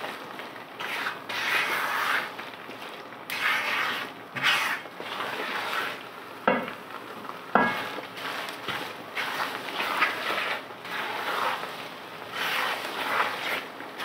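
A wooden spoon scrapes and stirs a crumbly flour mixture around a non-stick wok as it roasts, in repeated rasping strokes about once a second. There are two sharp knocks, about six and a half and seven and a half seconds in.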